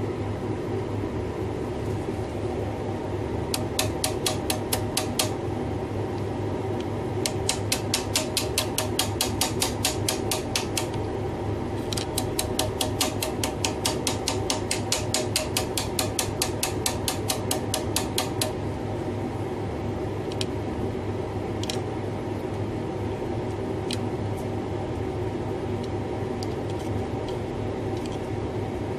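Rapid runs of sharp clicks, several a second, from an opened hard disk drive's head actuator arm as it is worked by hand with a tool, in three long runs followed by a few single clicks, over a steady mechanical hum.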